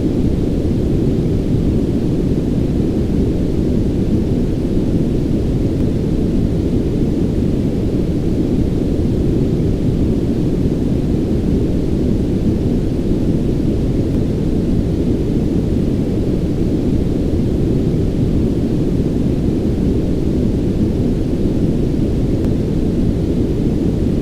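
Brown noise: a steady, deep rumbling hiss with its energy weighted toward the low end, unchanging throughout, as played by a sleep sound machine.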